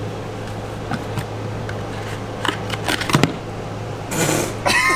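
Steady low mechanical hum in a small room, with scattered clicks and knocks as a plastic disinfecting-wipes canister is handled. The loudest knock comes about three seconds in, as the canister tips over onto the nightstand, and a short hiss follows about a second later.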